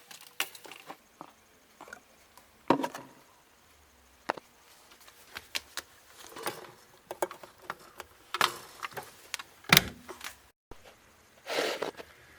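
A fleece throw being stuffed into a washing machine drum: fabric rustling with scattered knocks and bumps, the sharpest knock just before 10 seconds in.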